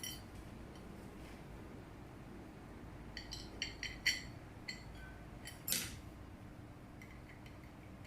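Parts of a tiered cake plate set being handled and fitted together: a run of light, ringing clinks and taps about three to five seconds in, then one louder, slightly longer clink near six seconds.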